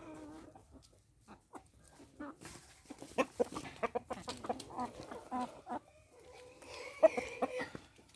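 Chickens clucking in short broken calls, among scattered short clicks, with one sharp click about seven seconds in.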